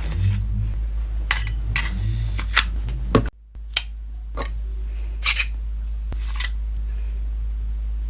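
Handling sounds from unpacking a gadget: scattered sharp clicks and snips over a steady low hum, with a brief gap in the sound about three seconds in.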